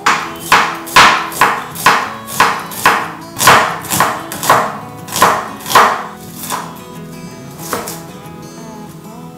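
Chef's knife chopping a red onion on a wooden cutting board, about two chops a second, thinning to a few spaced chops after about six seconds.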